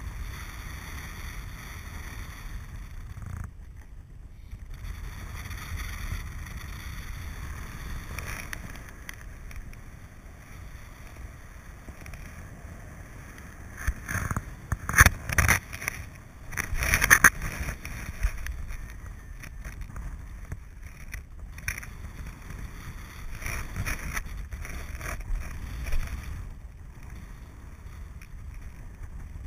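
Wind noise from the airflow of paraglider flight buffeting the camera's microphone: a steady low rumble, with louder gusts about halfway through.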